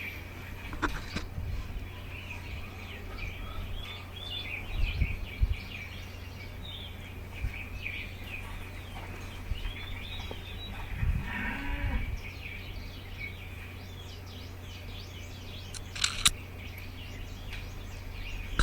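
Small birds chirping on and off, with one low bleat from a goat about halfway through and a sharp click near the end.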